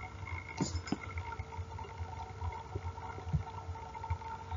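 Recording background noise: a faint steady hum with an uneven low rumble and a few soft clicks.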